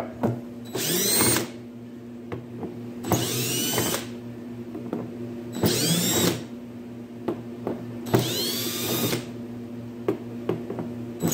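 A DeWalt cordless drill/driver backs screws out of a plastic radome cap in four short runs. Each run rises in pitch as the motor spins up and falls as it stops, with quieter gaps between them as the driver is moved from screw to screw.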